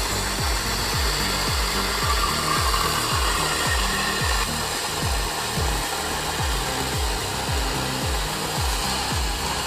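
Wood being sawn by a machine: a steady rasping hiss with an even rhythm of about three low strokes a second.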